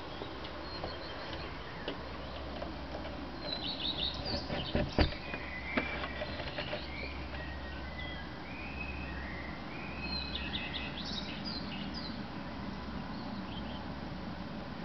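Common redstart singing: two short, high, jingling phrases, about four and ten seconds in, with other birds whistling in between and behind. One sharp click about five seconds in.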